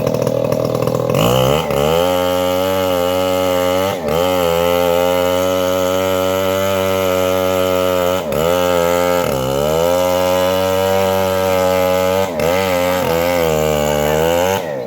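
Chainsaw running at high revs, its engine note dipping briefly and recovering several times, about once every few seconds.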